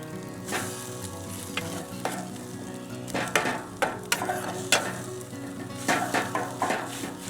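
Scrambled eggs sizzling in bacon grease in a G.I. mess kit pan, with a utensil scraping and clicking against the pan at irregular moments as the eggs are stirred.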